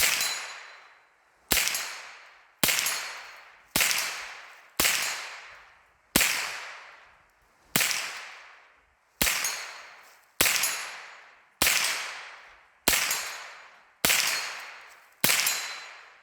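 AR-15 rifle fitted with a CMMG kit firing a steady string of about thirteen single shots, roughly one every second and a quarter, each followed by a long fading echo.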